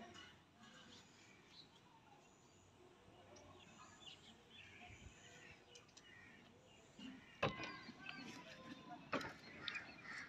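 Faint birds chirping in the background, then a few sharp knocks in the last few seconds, the loudest about seven and a half and nine seconds in.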